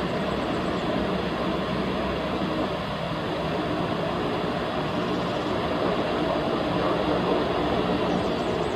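Steady drone of jet engines at an airport, an even rushing noise with a faint hum in it.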